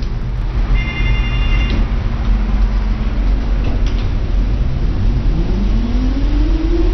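Interior of a Tatra T3 tram running, with a steady rumble from the bogies and running gear. About five seconds in, a whine from the traction equipment rises in pitch as the tram picks up speed, and a brief high beep sounds about a second in.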